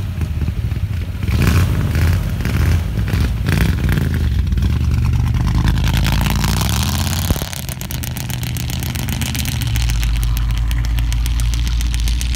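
Car engine revved in several blips, then running steadily at idle; the low note grows stronger about ten seconds in.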